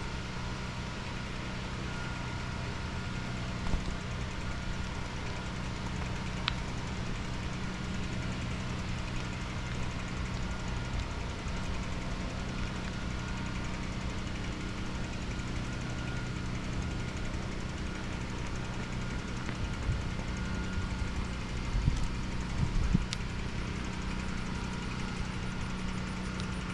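Steady mechanical hum at an unchanging pitch, like an engine running at constant speed, with a few knocks near the end.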